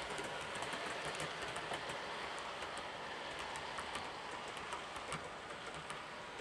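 OO gauge model train, a Class 26 diesel locomotive hauling mail coaches, running past on a curve. There is a steady whirring rumble from the wheels on the track, with many quick, light clicks. It fades slightly near the end as the train moves away.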